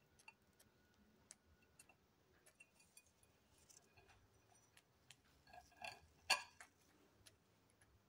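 A small parrot's beak pecking at food crumbs on a ceramic plate: faint, irregular light taps, the loudest a sharp click about six seconds in.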